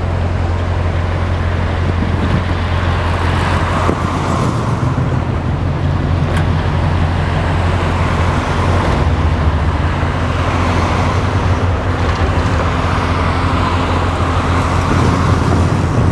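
A vehicle's engine running steadily at cruising speed, a constant low hum under heavy wind rushing over the microphone.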